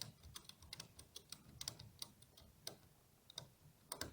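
Faint, irregular clicks and light taps from tie-down straps and buckles being handled while logs are secured on a vehicle roof, a few knocks louder than the rest.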